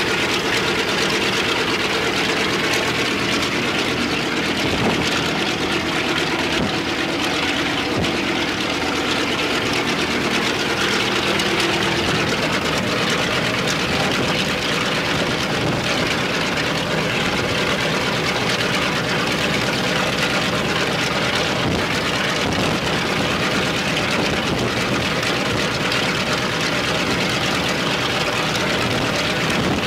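Il-14T's left Shvetsov ASh-82T fourteen-cylinder radial piston engine running steadily on a ground run, its pitched engine note changing about twelve seconds in.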